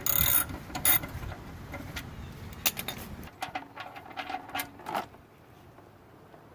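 Wrench on the oil drain plug of a Jeep Cherokee's 4.0L engine, giving a scattering of sharp metallic clicks and scrapes as the plug is loosened.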